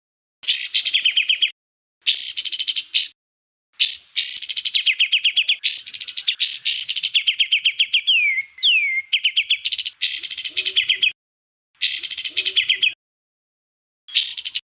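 Songbird song for bird training: bursts of very fast repeated high notes ('tembakan' shots), about six phrases with a couple of sweeping whistled notes in the middle. Each phrase starts and stops abruptly into dead silence, as in an edited, looped recording.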